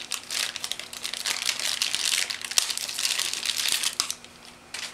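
Plastic packaging crinkling while an accessory cable is handled and unwrapped: a dense run of crackling that stops about four seconds in, with one short click near the end.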